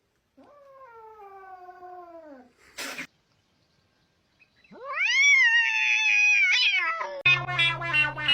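Domestic cat calling: a drawn-out meow falling in pitch, a brief noisy burst, then a louder, long yowl that rises, holds and falls away. Music comes in near the end.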